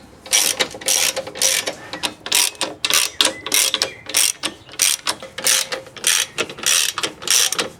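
Hand ratchet wrench clicking in quick, even strokes, about three a second, as bolts are run in.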